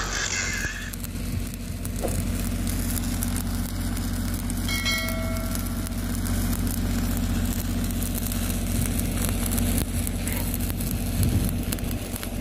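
Stick (arc) welding on a steel water pipe: the electrode arc crackles and sizzles steadily as a bead is run to seal a leak with a patch. Under it runs a steady low engine hum.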